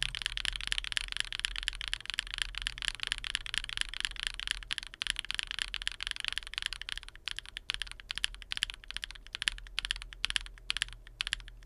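Butterfly linear mechanical keyboard switches being typed on quickly: a dense, continuous clatter of key presses and bottom-outs.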